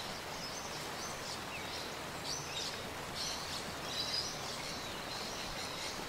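Creek water running over rocks, a steady rushing hiss, with a bird giving short high calls again and again over it.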